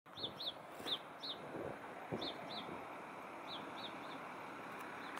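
A small bird chirping, short high chirps mostly in pairs about once a second, over the steady background hum of city traffic.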